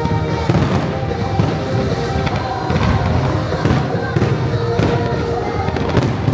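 Fireworks bursting again and again, sharp bangs and low thuds, over the show's synchronised music with its held tones.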